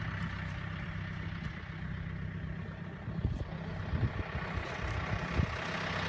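A vehicle engine idling steadily, with a few short low thumps a few seconds in.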